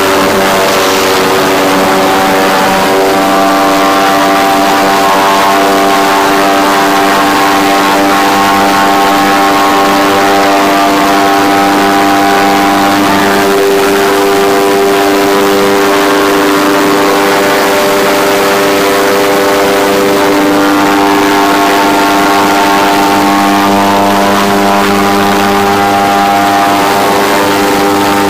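Airboat's engine and large air propeller running at speed, a loud steady drone made of several tones at once, its pitch wavering slightly.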